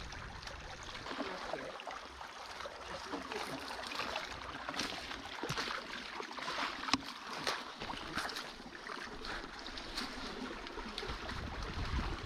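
A small creek running over rocks, a steady wash of water with scattered short clicks, one sharper than the rest about seven seconds in.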